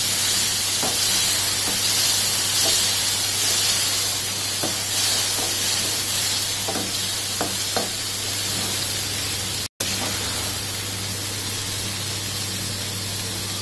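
Thick kadhi with pakoras sizzling in a kadhai as a slotted steel ladle stirs it, the ladle clicking and scraping against the pan several times over a steady hiss.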